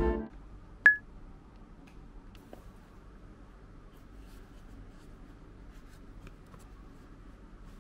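Background music cuts off at the start, a single sharp click comes about a second in, then faint rustling and handling of a spiral-bound notebook's paper cover and pages.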